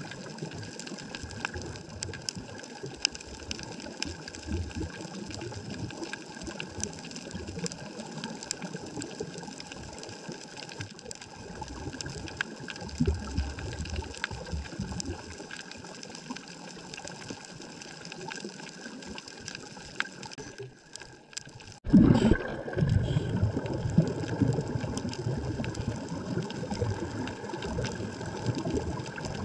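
Underwater ambience picked up through a stationary GoPro's waterproof housing: a steady wash of water movement with scattered faint clicks and crackles. About 22 seconds in, a sudden, louder low rumble of water movement starts and keeps going.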